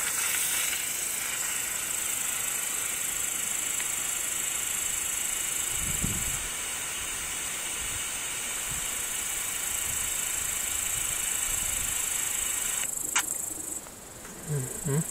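Air hissing steadily out of the air-release valve on a frame-pool filter pump's housing as the housing fills with water; the hiss cuts off suddenly about fourteen seconds in, just after a click, once the housing is full.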